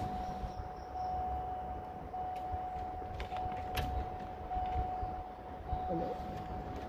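A steady electronic warning beep at one pitch, broken by tiny gaps about once a second, over low rumble and a few clicks of handling.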